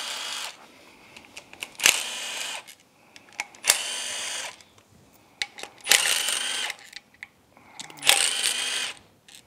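Cordless power driver spinning out the valve cover bolts on a Yamaha F225 outboard's cylinder head, in short whirring runs of under a second about every two seconds, with small clicks of handling between runs.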